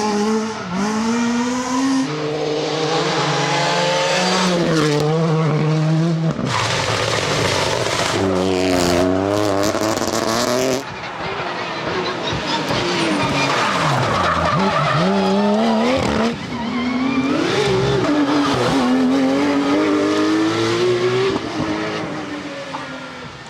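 Rally cars driven hard on a special stage: engines revving up and dropping back through gear changes, with tyre noise, in several short passes cut one after another. The sound fades out near the end.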